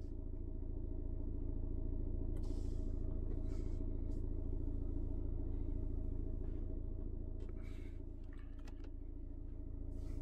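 Audi Q3 TFSI petrol engine idling, a steady low rumble with a constant hum, heard from inside the car's cabin.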